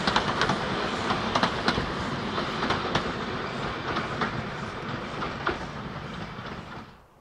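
Heritage steam-hauled passenger train's carriages rolling away along narrow-gauge track, their wheels clicking over the rail joints. The sound slowly fades, then cuts off near the end.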